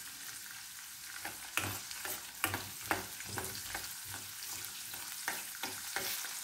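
Whole garlic cloves sizzling in hot sesame oil in a stainless-steel kadai, slowly frying toward half-browned, while a steel ladle stirs them and clinks and scrapes against the pan at irregular moments.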